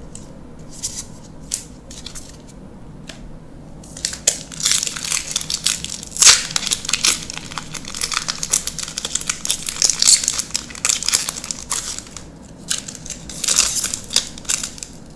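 Magic: The Gathering Unfinity draft booster pack's foil wrapper being crinkled and torn open: dense crackling that starts about four seconds in, pauses briefly, then comes back near the end. Before it, a few light clicks of playing cards being handled.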